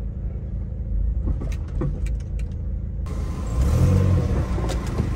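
Low, steady rumble of a slow-moving Honda City's engine and tyres heard from inside the closed cabin, with a few light clicks. About three seconds in, brighter outside traffic noise comes in through the open driver's window.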